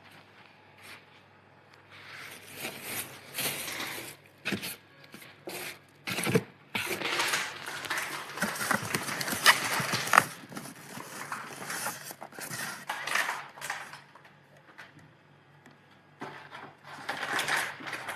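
Irregular rustling, scraping and clicking of objects being handled, busiest in the middle stretch and quiet near the start, over a faint steady hum.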